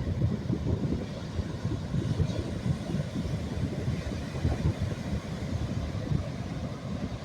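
Wind buffeting the phone's microphone, an uneven low rumble, over the rush of Atlantic Ocean waves on the shore.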